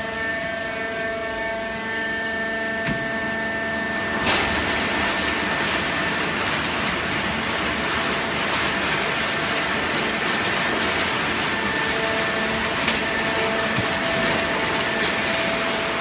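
Horizontal hydraulic waste-paper baler running: a steady hum made of several held tones, joined about four seconds in by a sudden loud rushing noise that carries on, with a few light clicks.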